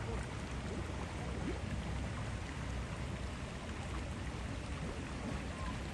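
Running water making a steady rushing hiss.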